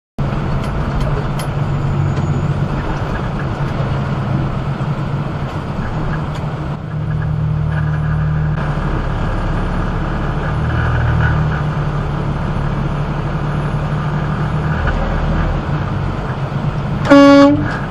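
A semi-truck's diesel engine running low and steady, heard from inside the cab. Near the end the truck's horn gives one short, loud blast, a single held tone with many overtones.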